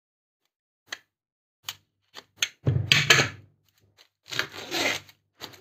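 Clear plastic shrink-wrap being cut and pulled off a small cardboard box: a few light clicks and ticks, then two spells of crinkling and tearing plastic, about three seconds in and again near the end.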